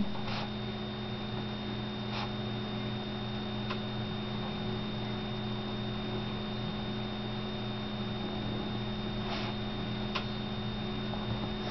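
Steady low electrical hum with a thin, faint high-pitched whine over it, broken only by a few faint, soft ticks.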